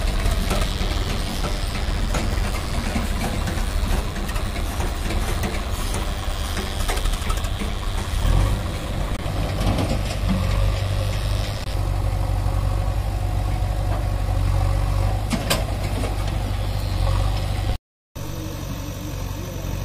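Diesel engines of a Swaraj 744 FE three-cylinder tractor and a JCB backhoe loader running steadily at low revs. The sound drops out for a moment near the end.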